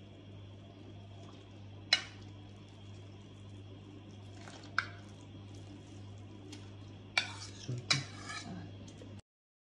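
Metal spoon clinking and scraping against a ceramic bowl as khoya is scraped out into a pot of milk: single sharp clinks about two and five seconds in, then a quick run of several clinks near the end, over a steady low hum. The sound cuts off suddenly just before the end.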